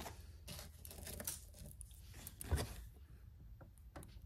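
Costume jewelry, beaded necklaces and chains, clattering and rustling against each other as a hand pulls a necklace out of a heap, in a few short bursts.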